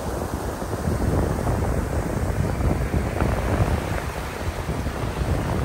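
Sea surf washing onto the beach, a steady rushing noise mixed with wind rumbling on the microphone.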